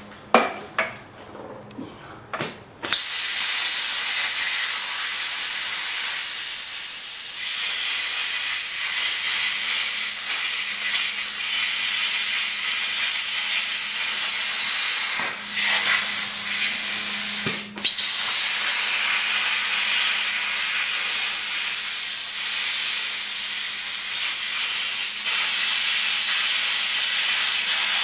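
Plasma cutter arc cutting a welded-on steel leaf spring pad off an axle tube: a steady, loud hiss that starts about three seconds in. It breaks off briefly twice near the middle, then runs on.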